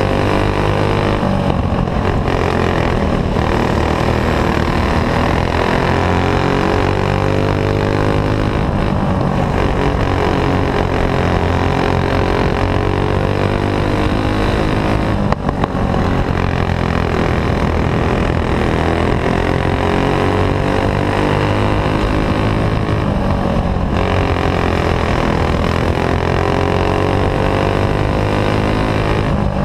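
Clone-class racing kart's single-cylinder four-stroke engine running hard, its pitch rising and falling every several seconds as the kart goes down the straights and through the turns.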